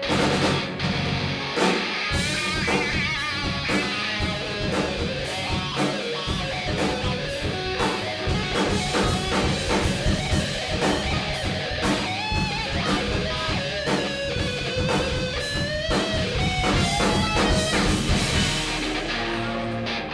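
Live rock band playing an instrumental passage: electric guitar over bass and drum kit, with no vocals.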